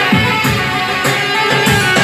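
Live Arabic wedding music from an "org" arranger keyboard: a plucked-string-like melody over a steady drum-machine beat, with low thumps and high ticks several times a second.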